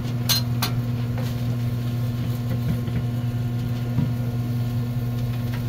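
Steady low electrical hum from the stall's kitchen equipment, with a few sharp clicks in the first second and a metal spatula tapping the griddle about four seconds in.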